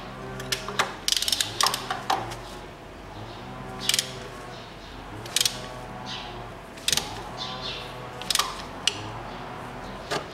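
Ratchet wrench clicking in short bursts about every second and a half as it works a 16 mm spark plug socket on the Mitsubishi Colt's 1.5 engine. The spark plug is tight and turning stiffly.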